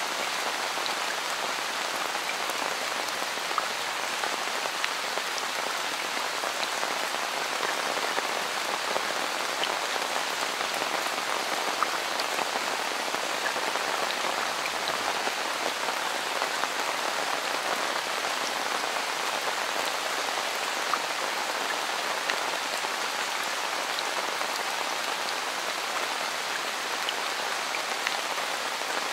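Steady rain falling, an even patter with scattered sharper single drop hits.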